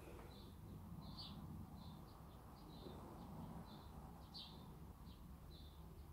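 Near silence: faint room tone with a small bird chirping over and over in the background, short high chirps a few times a second.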